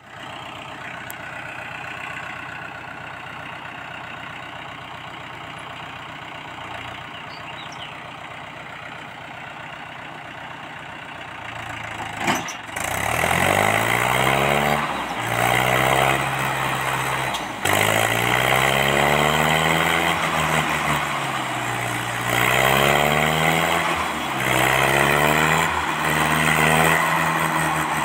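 Mahindra 575 DI four-cylinder diesel tractor engine idling steadily. About twelve seconds in there is a sharp knock, then the engine revs hard again and again, rising and falling in pitch, labouring under a trolley load heavy enough to lift the tractor's front wheels.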